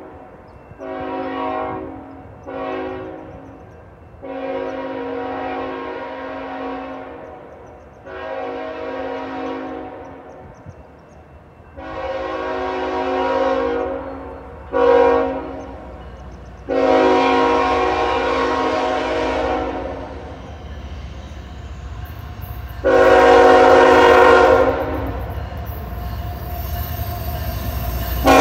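Freight locomotive air horn sounding about eight blasts, short and long, a chord of several tones, as the train approaches. Under the later blasts the low rumble of the diesel locomotives grows louder as the lead engine draws near.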